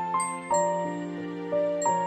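Gentle background music: a slow tune of struck, bell-like notes, a few each second, each fading after it sounds.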